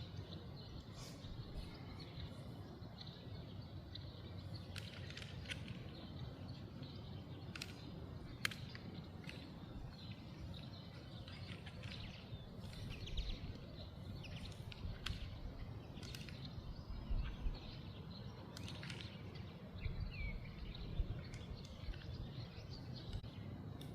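Outdoor ambience: small birds chirping now and then, in short calls scattered throughout, over a steady low rumble that swells briefly a few times.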